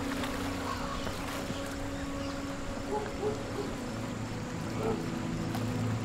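A slow film score of low held notes that shift every second or two, over the steady rush of a fast-flowing river.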